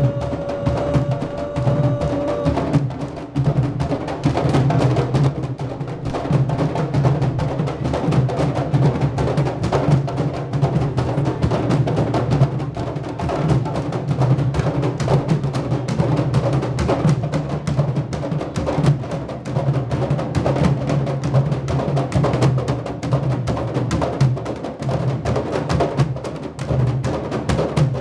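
A troupe of candombe drums played together in a street procession: dense, steady rhythmic drumming from many large barrel drums. A held tone sounds over the drums for the first two seconds or so.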